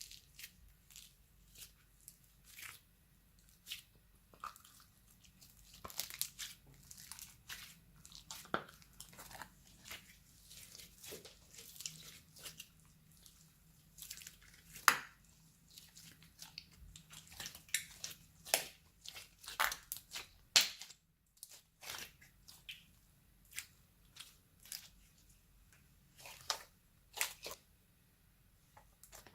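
Slime being squished and stretched by hand, giving irregular crackling and popping clicks, with a short pause about two-thirds of the way in.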